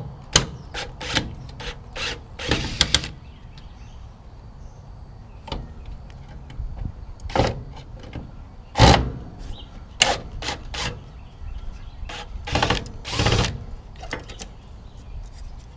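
Screws being taken out of a motorhome's headlight retaining ring: a series of short clicks and knocks from the tool and metal parts, with several brief whirring bursts about half a second long.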